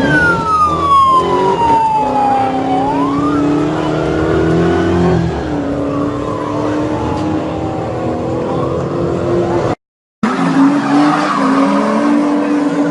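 A car engine revving hard while its tyres squeal in a smoky burnout, with long falling and rising screeches. It cuts out briefly about ten seconds in, then another engine revs with tyre noise.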